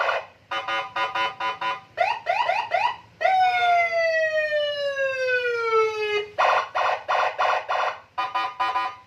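Senken custom police-escort siren on a Honda ADV scooter, sounding through its 15-watt TOA horn speaker and cycling through its tones. First come rapid stuttering pulses, then a few quick rising yelps, then one long falling wail of about three seconds, then stuttering pulses again.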